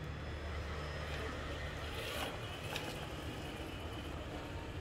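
Traxxas TRX-6 Mercedes-AMG G63 6x6 RC crawler driving, its electric motor and gears running with a steady low hum that eases off after the first second and a half. A couple of sharp clicks come a little after two seconds in.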